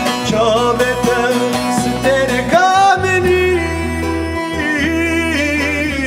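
Background music: a sung melody over plucked-string accompaniment and a steady bass line.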